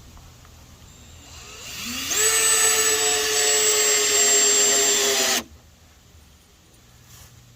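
Cordless power tool motor spinning up with a rising whine, running steadily at full speed for about three seconds, then cutting off suddenly.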